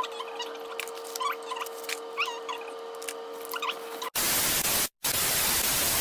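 Faint rustling and clicks of snack packets being handled over a steady low hum, then about four seconds in a loud burst of TV-static hiss, used as a jump-cut effect, cutting out for an instant near the five-second mark.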